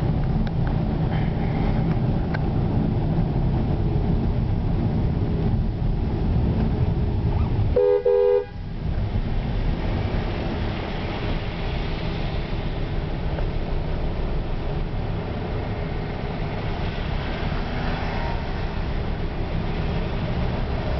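Steady rumble of a car's engine and tyres on a wet road, heard from inside the cabin. About eight seconds in, a car horn honks once, briefly, for about half a second, on two close notes.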